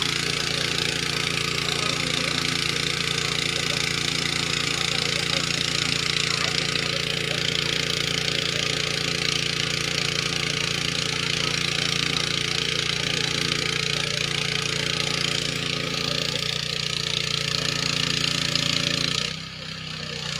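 A small engine running steadily at an even speed, dropping away sharply about a second before the end.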